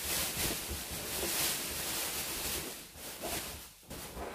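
Inflated latex balloons rubbing and rustling against each other and against hands as they are gathered up and handled, an uneven scraping noise that eases off briefly near the end.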